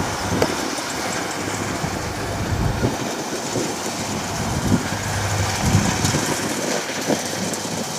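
Kubota DC60 combine harvester running while cutting rice: a steady diesel engine hum and threshing clatter, with a few short knocks.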